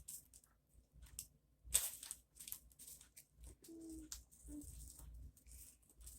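Faint, scattered clicks and crackles of hands mixing plastic beads into slime.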